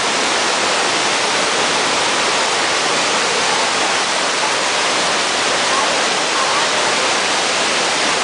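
A waterfall pouring and splashing into its pool, a dense, steady rush of falling water.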